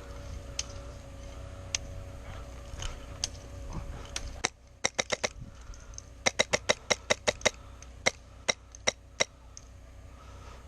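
Airsoft guns firing: a few scattered distant snaps, then just past the middle a quick string of about four sharp shots, a faster string of about ten, and four single shots about half a second apart near the end.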